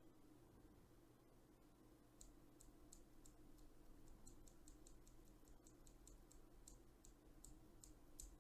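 Faint clicking of a TTC Gold V2 Brown tactile switch being pressed and released with its top housing removed, the stem working in the bottom housing. The clicks start about two seconds in and come about three a second, unevenly.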